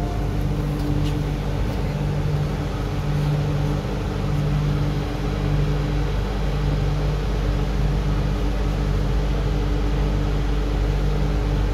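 Steady hum inside an MTR Q-Train metro car standing at a station, from its ventilation and onboard electrical equipment. A low droning tone comes and goes every second or two.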